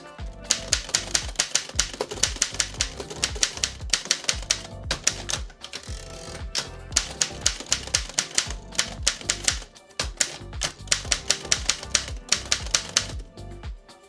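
Underwood Standard manual typewriter being typed on: fast runs of sharp keystrokes, several a second, broken by a few short pauses.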